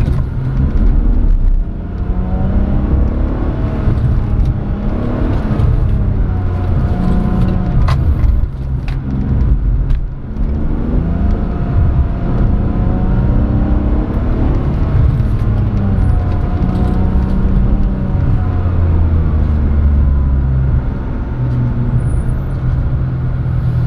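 Car engine heard from inside the cabin while the car is driven around a track, its pitch rising and falling over and over as the driver accelerates and eases off.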